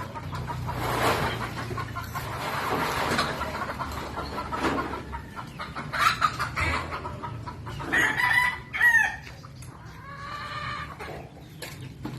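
Chickens clucking, with a rooster crowing about two-thirds of the way through.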